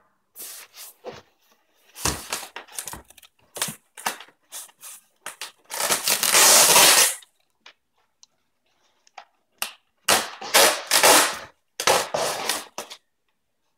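Packing tape being cut and ripped off a styrofoam shipping box and crumpled up: a string of short rips and crackles, with a long loud rip about six seconds in and another run of rips near the end.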